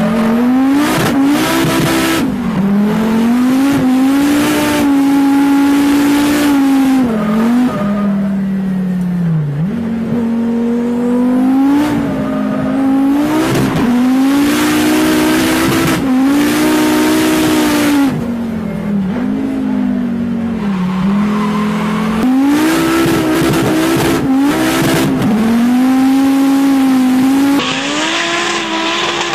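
Competition car engine heard from inside the cockpit, its revs climbing and dropping again and again as the throttle is worked, with several stretches of tyre squeal. Near the end the sound changes to a car heard from trackside.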